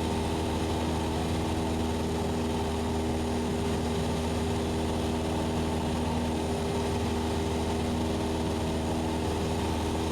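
Cessna 172SP's four-cylinder Lycoming engine and propeller droning steadily in flight, heard inside the cabin, with no change in pitch or power.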